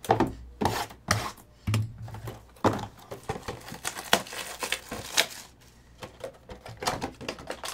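A cardboard box of Playbook football cards being handled and opened on a table: an irregular run of sharp taps, knocks and scrapes.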